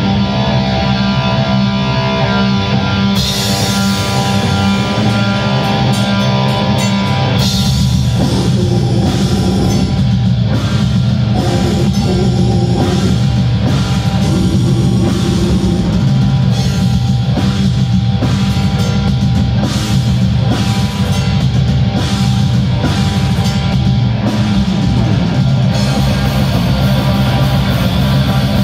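Heavy metal band playing loud distorted electric guitars, with the full drum kit coming in about seven seconds in.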